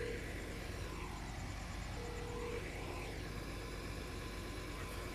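Telephone line tone heard through a phone's speaker while a call is being transferred: a steady beep-like tone ends just after the start and sounds again briefly about two seconds in, over a steady low background hum.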